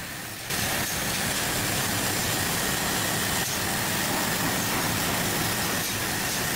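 CNC laser cutter cutting steel sheet: a steady, loud hiss of the cutting jet and spraying sparks, with a faint high steady tone, coming in abruptly about half a second in.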